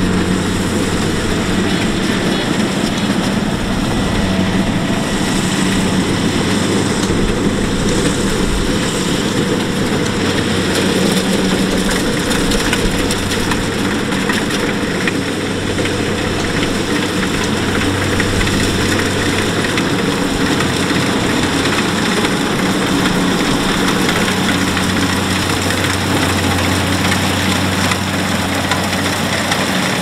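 Kubota DC-70 combine harvester running steadily while cutting and threshing rice: a continuous diesel engine hum over dense mechanical noise from the machinery.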